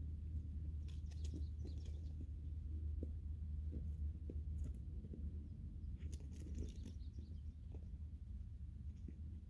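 Steady low rumble of wind on the microphone, with brief faint high chirps about a second in and again about six seconds in.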